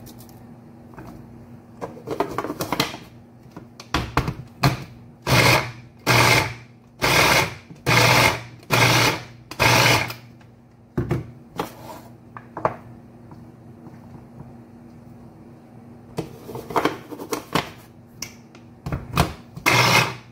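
Small electric food chopper with a glass bowl, pulsed in about eight short bursts of roughly half a second each, its blade chopping raw cauliflower into rice-sized bits. After a pause, a few shorter, ragged bursts come near the end, as the cauliflower begins to get stuck. A light clatter of the bowl and motor head being fitted comes a couple of seconds in.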